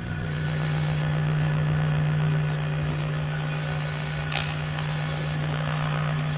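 A steady low hum made as a UFO sound effect. It settles slightly lower in pitch at the start, then holds one tone, with a brief faint scrape about four seconds in.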